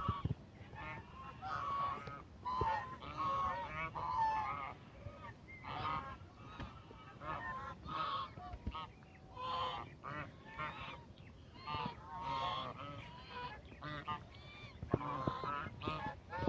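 A flock of white domestic geese honking, many calls overlapping in irregular bursts with short gaps between.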